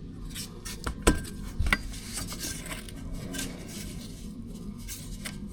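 Metal tools and parts clinking and knocking against each other in a few sharp strikes, the loudest about a second in and again just after, over a low steady hum.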